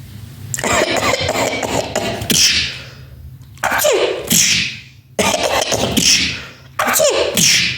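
A person's voice making exaggerated, comic sneezes and cough-like noises. About three sneezes, each a falling 'ah' that breaks into a hissing 'choo', with other vocal noises between them.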